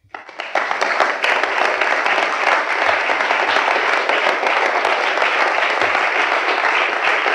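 Audience applauding: dense hand clapping that swells within the first half second and then holds steady.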